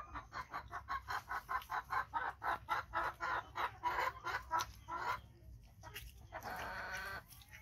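A chicken clucking in a fast, even run of about five clucks a second, then, after a short pause, one longer drawn-out call near the end.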